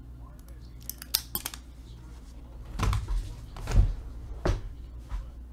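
A quick run of sharp clicks about a second in, like computer keyboard or mouse clicks. Then several heavier knocks and bumps of things being handled on a desk, the loudest near the middle.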